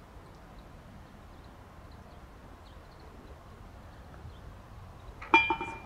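Golf ball dropping into the hole's cup at the end of a holed putt: one sharp clatter with a brief metallic ring and a couple of quick rattles near the end, over a quiet outdoor background.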